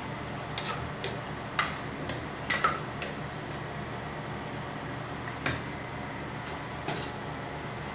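A metal ladle clinking and scraping against the side of an aluminium cooking pot while stirring a thick sweet and sour sauce. There are several quick clinks in the first three seconds, a louder one about five and a half seconds in and a faint one near the end, over a steady low background noise.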